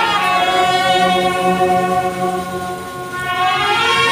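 Brass band playing long held chords, dipping briefly about three seconds in and swelling again near the end.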